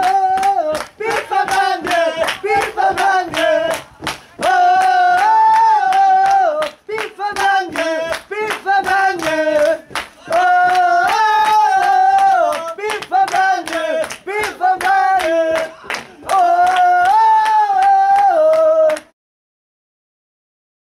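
A group of voices singing a chant in unison over steady rhythmic clapping, in repeated short phrases. It cuts off abruptly near the end, leaving a couple of seconds of silence.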